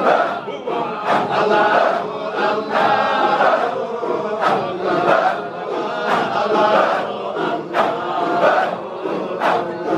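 A large crowd of men chanting "Allah" in unison in Sufi dhikr, loud and rhythmic, with sharp accents roughly once a second.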